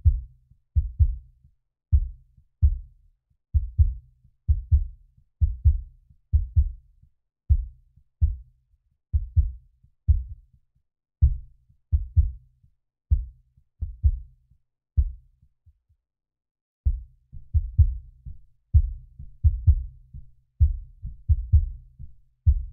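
Kick drum isolated from a stereo drum mix by a steep 40 dB-per-octave high-cut filter and a noise gate: dull low thumps, often in quick pairs, with silence between them and no snare coming through. The thumps stop for about a second and a half roughly two-thirds of the way in, then carry on.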